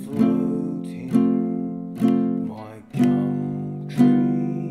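Ukulele strummed once a beat, about one strum a second, each chord ringing and dying away before the next. The chord changes about three seconds in.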